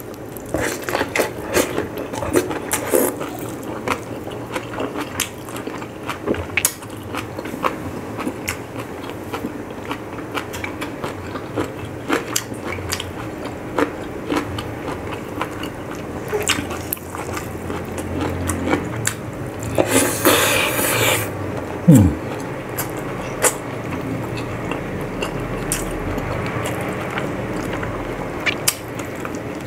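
Close-up eating sounds: a person chewing and biting into rice, boiled pork and greens eaten by hand, with frequent wet mouth clicks and smacks. About two-thirds through there is a brief breathy rush, followed by a short hum that falls in pitch.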